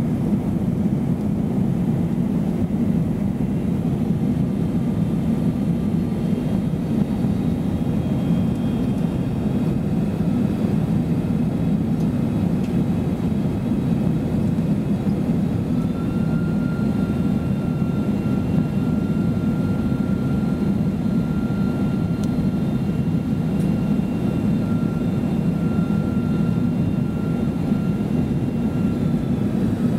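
Steady cabin noise inside a Boeing 747 descending on approach: a deep, even rumble of engines and airflow. A faint high whine joins about halfway through and holds steady until near the end.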